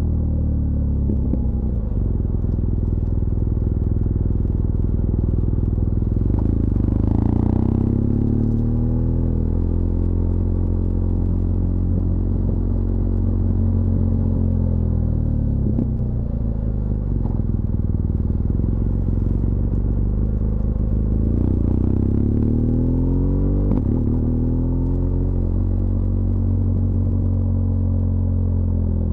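BMW R1200GS LC Adventure's boxer-twin engine running, its revs rising and falling several times with the throttle and engine braking.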